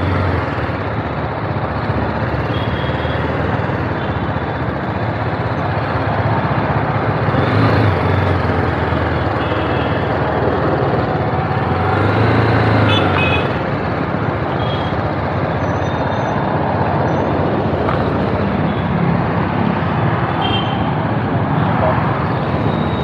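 BMW G 310's single-cylinder engine running as the motorcycle rolls slowly in city traffic, under a steady rush of traffic and road noise that swells louder about 8 and 12 seconds in.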